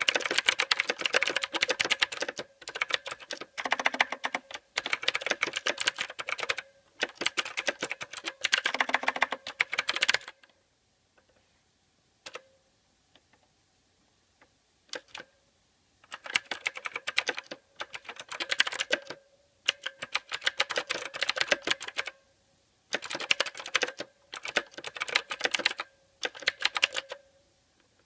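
Mechanical keyboard typing: rapid runs of key clicks in bursts lasting a few seconds each. About ten seconds in the typing stops for several seconds, broken only by a few single key presses, then starts again in bursts.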